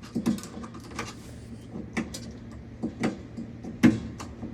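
Scattered light clicks and knocks of a flat-bladed screwdriver working a spring on a metal drawer slide's release tab, about six in all, the loudest just before the end, over a faint steady low hum.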